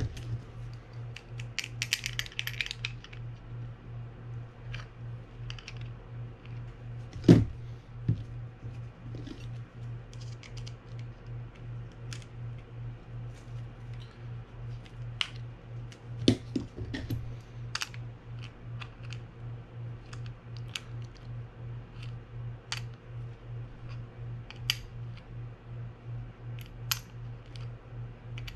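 Small metal clicks and taps from a screwdriver and the parts of a Daiwa Sealine 300H fishing reel as its screws are taken out, with a brief scratchy rasp about two seconds in and louder knocks about seven and sixteen seconds in. A steady low hum that pulses a few times a second runs underneath.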